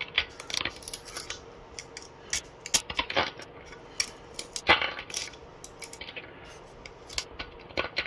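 Small blade tool prying and scraping thin red PETG support interface off a PLA 3D print, as the plastic lifts away. Irregular light clicks and ticks, the sharpest about four and a half seconds in.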